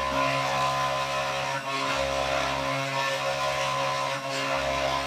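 3018 mini CNC router engraving wood: the spindle motor runs with a steady hum and whine while the stepper motors buzz as the axes move. A deeper drone from the steppers starts and stops a few times, about two seconds in and again near the end.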